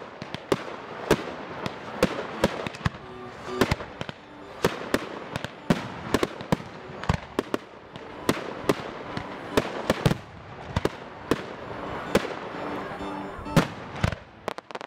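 Aerial fireworks launching and bursting: a rapid, irregular string of sharp bangs, a few a second, over a continuous crackling hiss.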